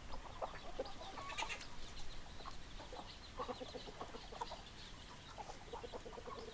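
Domestic hens clucking: many short clucks overlapping, with one louder, higher squawk about a second and a half in.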